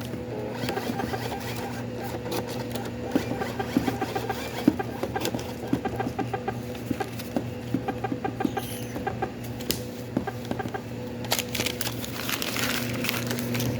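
A fast, uneven run of short clicks and taps over a steady electrical hum, with louder rustling near the end.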